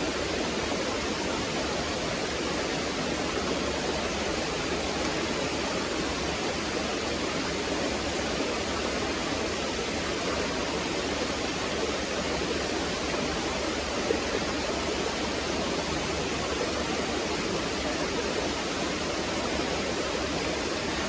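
Small waterfall on a stream, water falling and gurgling steadily.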